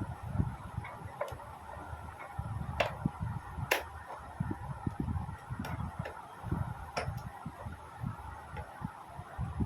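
Vintage Philips 236 valve radio crackling through its loudspeaker: irregular low thumps and a handful of sharp clicks over a steady hiss, the noisy output of its sound fault.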